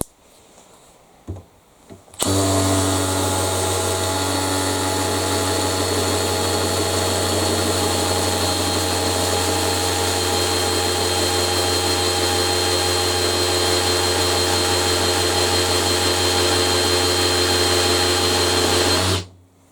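Makita XPH06 18 V cordless hammer drill running in hammer mode on low gear, boring a 16 mm masonry bit into a soft cinder block, larger than the drill's 13 mm rating. It starts about two seconds in, runs steadily under load for about seventeen seconds and stops abruptly near the end.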